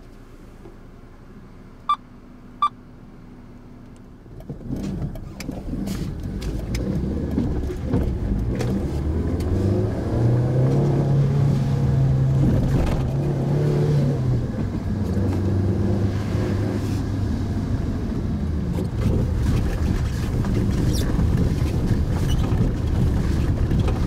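Mitsubishi Pajero Mini heard from inside the cabin. The engine is quiet at first, and two short beeps sound about two seconds in. From about four and a half seconds the engine gets loud as the vehicle drives off, revving up harder around ten to fourteen seconds in, over a steady road noise.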